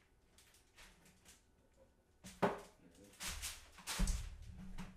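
Handling noises as a jar is taken from a shelf: a few faint clicks, a sharp knock a little before halfway, then shuffling and rustling as the person walks back.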